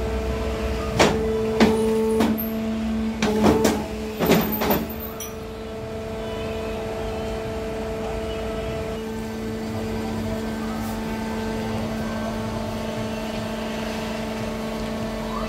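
Horizon APC-T61 hydraulic paper cutter running with a steady hum. A cluster of about seven sharp knocks and clacks comes in the first five seconds as stacks of printed sheets are worked on the table, and then only the hum goes on.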